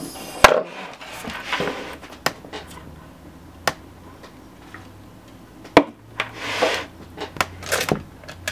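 Scattered sharp clicks and knocks of small objects being handled and set down on a hard surface, with a drink taken from an aluminium can in between. The loudest knock comes about half a second in.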